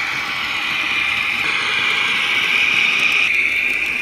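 Model BR 231 diesel locomotive's sound decoder playing a steady diesel engine sound through its small loudspeaker as the model runs past. The sound is thin and tinny, as recorded on a smartphone.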